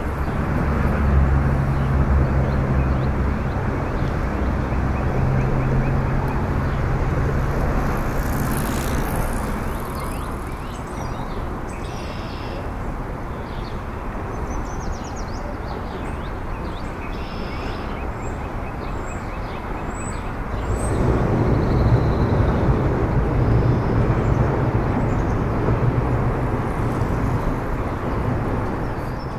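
Road traffic on the bridge overhead, a steady rumble with a deeper engine hum in the first third and again in the last third.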